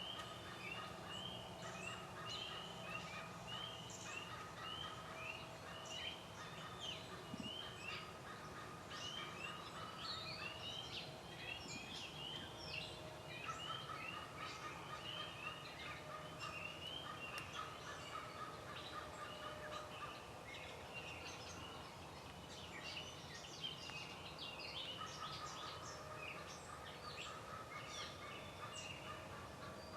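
A dense chorus of many animals calling together: overlapping short, high rising chirps repeated over and over, over a lower continuous trill that drops out twice and comes back.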